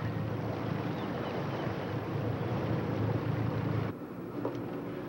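A fishing dragger underway: its engine running steadily with water and wind rushing past along the hull. About four seconds in this cuts off suddenly to a quieter, steady engine hum below deck with a single light clink.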